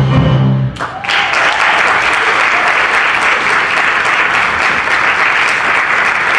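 Audience applauding at the end of a stage musical number. A low held final note cuts off just under a second in, and dense, steady clapping follows.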